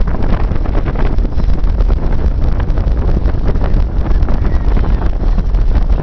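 Strong wind buffeting the microphone: a loud, steady rumble with no let-up.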